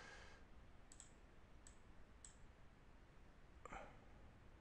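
Faint computer mouse clicks over quiet room tone: three light clicks in the first half and a somewhat louder one near the end.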